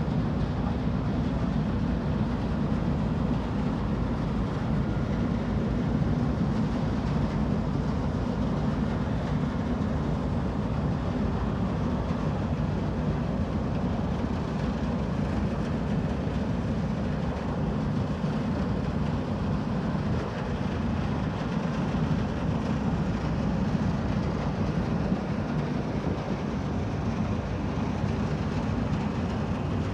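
Sado Kisen car ferry Kogane Maru's engines running with a steady low rumble as the ship gets under way out of port.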